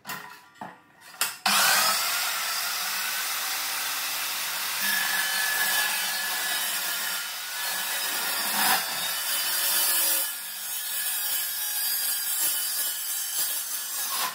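A few sharp knocks, then a metal-cutting chop saw spins up with a rising whine about a second and a half in and cuts through steel strut channel in a steady harsh grind. The grind eases briefly about ten seconds in and then carries on.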